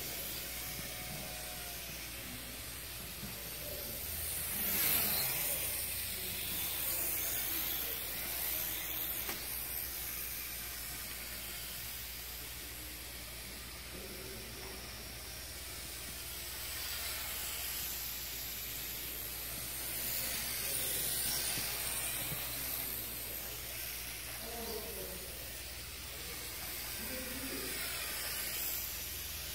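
Small electric model airplane's motor and propeller whirring in a gymnasium, swelling and fading several times as it flies past and away.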